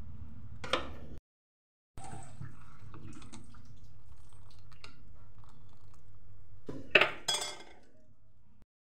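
A spoon stirring thick dal in a metal pot, with liquid sloshing and the spoon clinking against the pot. The loudest clatter comes about seven seconds in. There is a steady low hum underneath, and the sound cuts out abruptly twice.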